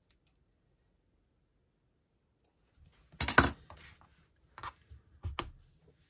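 Craft supplies being handled on a work table: a sharp clatter about three seconds in, then a few lighter clicks and taps.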